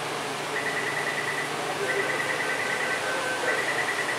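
Door-closing warning beeping at a Taipei Metro Wenhu Line train doorway: a rapid string of high electronic beeps, about ten a second, in runs of about a second with short gaps, with a slower, lower beep alongside in the middle. It sounds over a steady hum of the waiting train and station.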